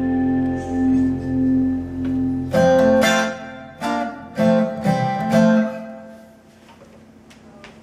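Taylor 414ce acoustic guitar being played: held notes ringing, then a run of about six sharp plucked chords, after which the sound dies away about six seconds in.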